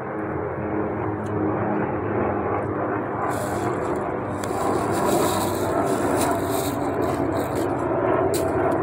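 Steady traffic noise from the highway bridge overhead, a constant rumble and hiss. From about three seconds in, crackly rustling close to the microphone joins it.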